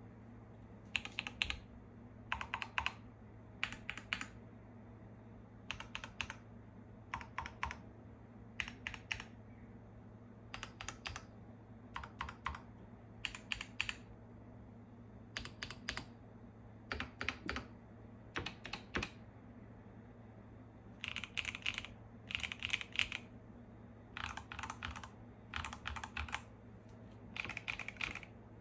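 Keychron full-size mechanical keyboards being typed on in short clusters of keystrokes, a group about every second or so. After a short pause about two-thirds through, the keystrokes take on a brighter, different tone.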